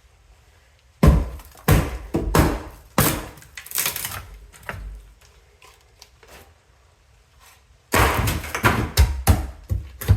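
Repeated hammer blows and knocks on wooden floorboards as the floor is broken up: a run of loud strikes starting about a second in, a pause, then another quick run near the end.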